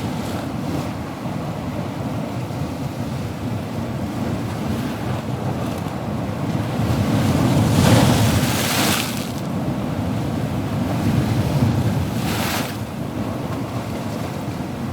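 Sea waves washing in against a steady surf background, with one larger wave breaking about halfway through and a smaller one near the end.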